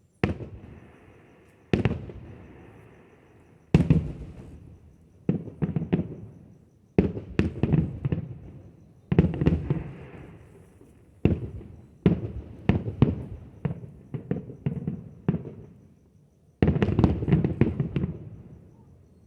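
Fireworks going off: a string of sharp bangs every second or two, each one echoing away, with quick runs of rapid bursts in the middle and near the end.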